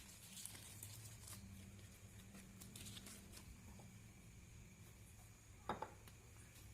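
Near silence: a faint steady hum with scattered soft clicks and rustles of handling, and one sharper click near the end.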